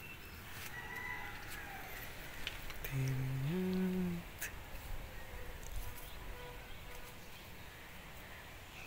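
A cow lowing once about three seconds in, a short call that steps up in pitch, over quiet outdoor background with a few faint clicks.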